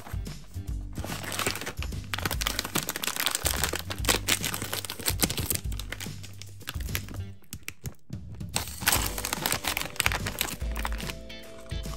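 Crinkling and rustling of a plastic candy pouch handled by hand, with candy pieces tipping into a clear plastic cup, over quiet background music.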